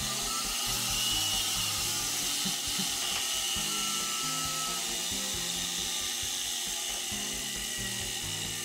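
Sherline 90V DC motor running on its test after being rebuilt with a new commutator, giving a steady high whine and brush hiss.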